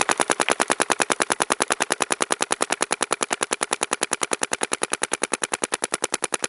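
Planet Eclipse Geo 2 electropneumatic paintball marker firing a long, unbroken string of paintballs: a fast, even rattle of shots, about a dozen a second.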